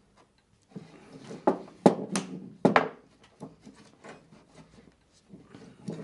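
Wooden picture-frame pieces being fitted together by hand on a workbench. Four sharp wooden knocks come in quick succession, with rubbing and scraping of wood on wood as the mortise-and-tenon corners are worked into place.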